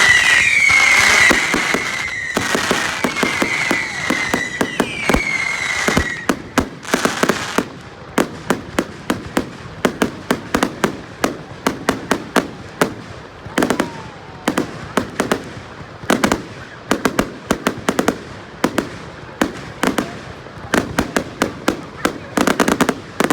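Fireworks going off: for the first six seconds a loud hiss with several falling whistles, then a long run of sharp bangs and cracks, several a second, slowly getting quieter.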